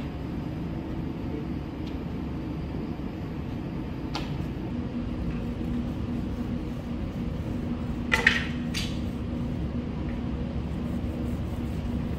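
Steady low background rumble, with a faint click about four seconds in and two sharp clinks close together about eight seconds in.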